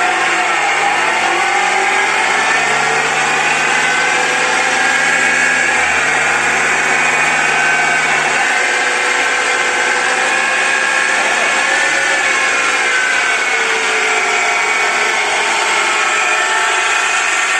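BMW X4 F26 rear differential droning as the wheels are spun up on a lift over the running engine, a steady whining hum whose pitch drifts up and down with wheel speed. The hum comes from the differential's bearings, the front pinion bearing worst, worn by oil starvation caused by an oil-restricting sleeve.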